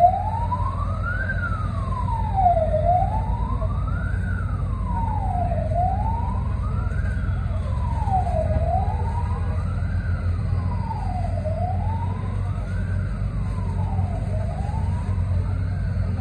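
Fire truck siren wailing, rising and falling slowly about once every three seconds, over a steady low rumble.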